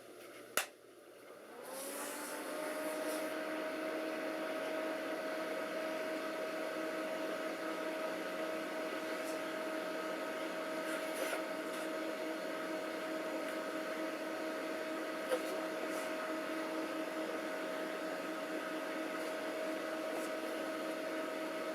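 A single click, then the cooling fans of an Alienware Area-51 desktop spin up with a rising whine and settle into a steady whir as the computer powers on.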